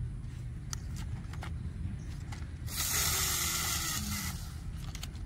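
A few light clicks of plastic toy-car parts being handled and fitted together, over a steady low rumble, with a loud burst of hiss lasting about a second and a half near the middle.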